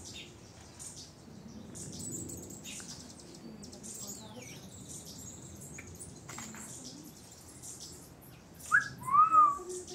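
Wild forest birds calling: faint, high, thin chirps throughout, then a loud, short call of a few arched whistled notes about nine seconds in.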